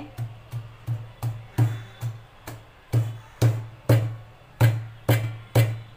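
Roasted peanuts being pounded with a pestle in a mortar (khalbatta): a steady run of about fourteen heavy thuds, two to three a second, crushing the nuts to a coarse powder.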